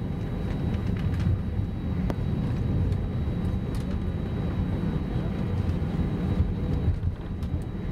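Steady low rumble of airliner cabin noise from an Airbus A319-111, with a faint steady hum above it.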